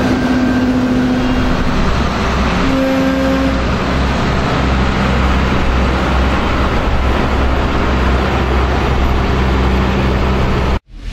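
Diesel engines of New Holland combine harvesters running as the machines drive along the road, a steady deep rumble. A steady tone sounds twice in the first four seconds, and the sound cuts off abruptly near the end.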